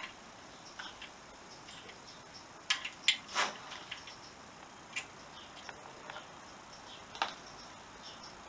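Scattered light metallic clicks and taps of hand tools and engine-mount hardware while an engine mounting bolt is fitted, with a small cluster of sharper knocks about three seconds in.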